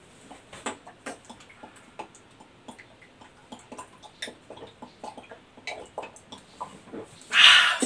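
A person gulping water straight from the neck of a 5-gallon plastic water jug: a run of small, irregular gulping and glugging clicks, then a short, loud rush of noise about seven seconds in.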